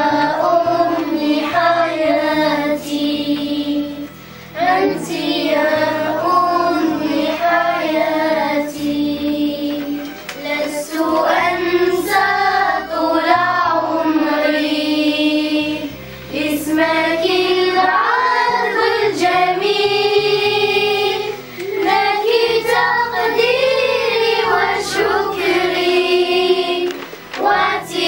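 A group of children singing together in unison, a slow melodic prayer song sung in phrases with short pauses between them.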